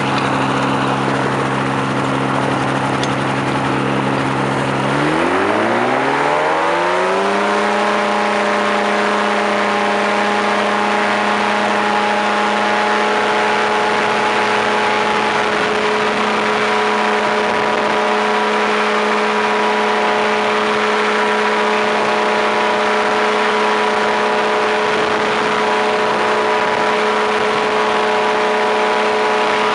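Powered parachute's engine and propeller running steadily at low throttle, then opened up about five seconds in, the pitch rising over two seconds to a steady full-power note that holds through the takeoff roll and climb-out.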